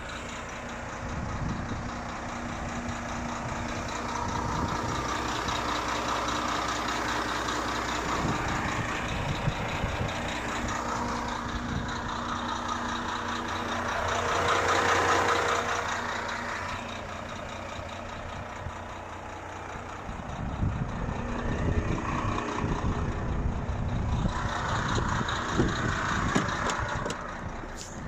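A heavy vehicle's engine running steadily at idle, swelling louder for a couple of seconds about halfway through. Rustling and bumping handling noise on the microphone in the last third.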